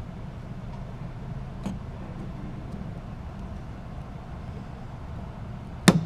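Steady low hum with a faint tap about two seconds in and a single sharp click near the end.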